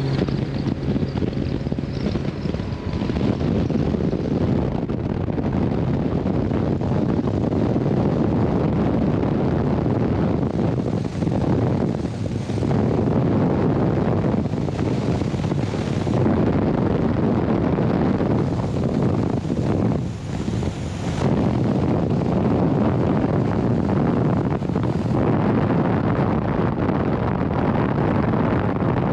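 Wind rushing over the microphone of an open bass boat at about 85 mph, with the Mercury 300R outboard at full throttle underneath on a top-speed run. The rush dips briefly a few times.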